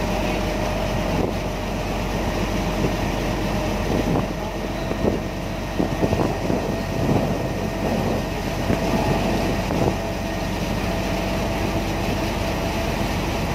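Ferry's diesel engine running steadily under way, a constant low drone with a steady whine on top, and a scatter of short knocks through the middle.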